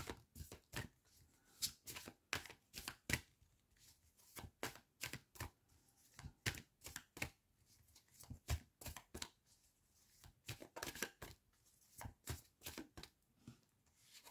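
A deck of large square cards being shuffled by hand: a run of short, soft clicks and flicks in irregular clusters as the cards slide and tap against each other, with a few brief pauses.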